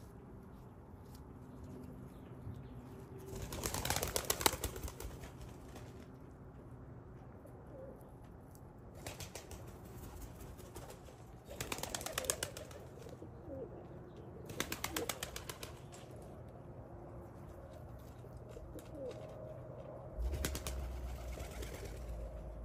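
Pigeons flapping their wings in about five short bursts of rapid wingbeats, the loudest about four seconds in. Soft low cooing sounds between the bursts.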